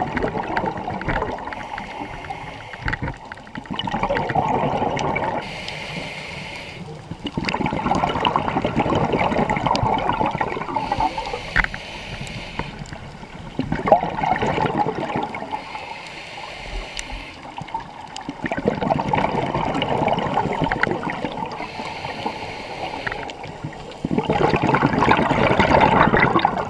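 Scuba diver breathing through a regulator underwater: a gurgling rush of exhaled bubbles every few seconds, with quieter gaps between breaths.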